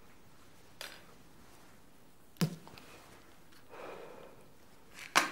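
A man breathing out cigarette smoke, a soft breathy exhale about four seconds in. A sharp knock comes about halfway through and small clicks before and near the end.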